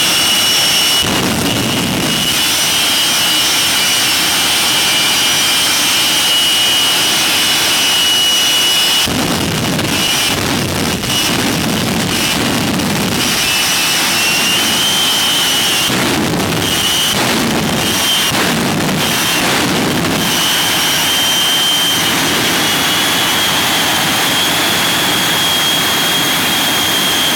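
Shockwave jet truck's three Westinghouse J34 turbojet engines running with a steady high whine. Loud rushing surges come in clusters about a second in, from about 9 to 13 seconds, and from about 16 to 20 seconds.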